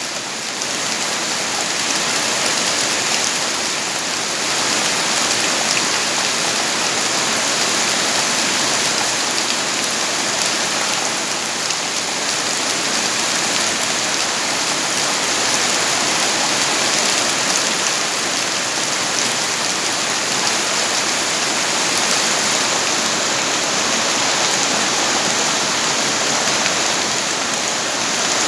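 Steady rain falling, an even hiss of many drops that stays constant throughout.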